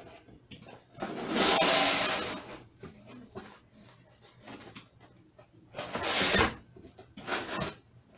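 Cardboard box flaps being worked open by hand. A long scraping rustle comes about a second in, and two shorter scrapes follow near the end.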